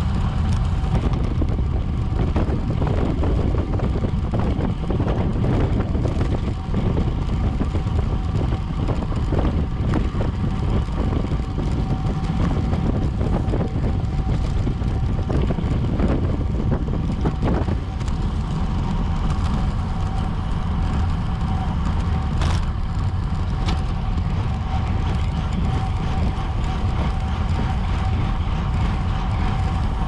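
Wind buffeting a bike-mounted camera's microphone at race speed: a steady loud rush, with a thin steady whine and a few sharp clicks.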